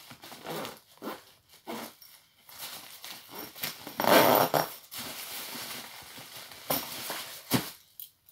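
Rustling and knocking of things being handled inside a packed travel bag, with a louder rustle about four seconds in and a couple of sharp knocks near the end.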